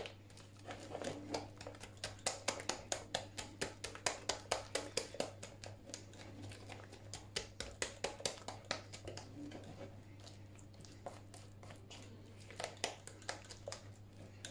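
A metal utensil beating thick flour-and-egg batter in a glass bowl, clicking against the glass in a quick rhythm of about four strokes a second, slower and quieter in the second half. The batter is being worked into a smooth paste before the milk goes in.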